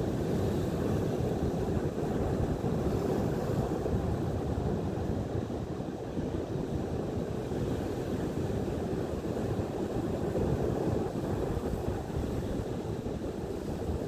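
Atlantic surf breaking and washing over rocks at high tide: a steady rush of waves, with wind buffeting the microphone.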